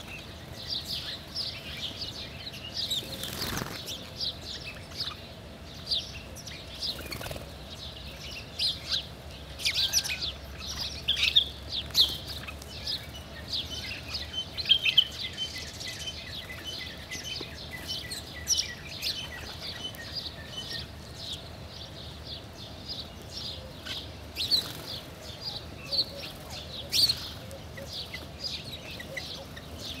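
A flock of house sparrows chirping constantly, many quick overlapping chirps, busiest in the middle, with occasional wing flutters as birds take off and land at the feeding spot.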